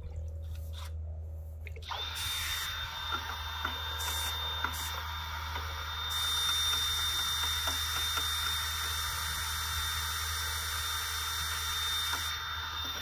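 Cordless drill spinning a paddle mixer in a five-gallon bucket of paver sealer, blending in granite gray colorant. After a few light handling clicks it starts about two seconds in and runs steadily with a high whine.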